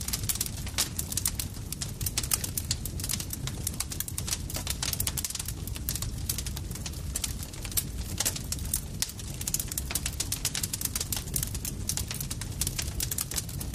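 Campfire crackling: dense, irregular snaps and pops of burning wood over a steady low rumble of the flames.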